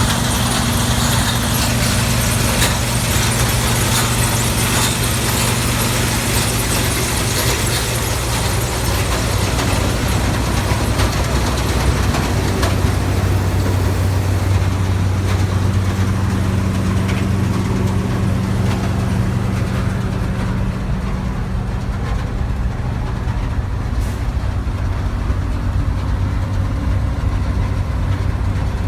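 New Holland TX68 combine harvester's Iveco diesel engine running steadily. About halfway through, the engine note drops slightly and the higher hissing machinery noise fades away.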